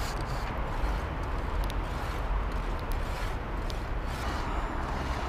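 Steady outdoor background noise, a low rumble with hiss, with a few faint clicks.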